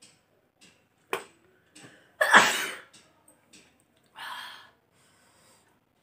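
A woman sneezing, her sneeze provoked by tickling the inside of her nose with a twist of paper. A short sharp catch comes about a second in, a loud sneeze a little after two seconds in, and a softer rush of breath around four seconds in.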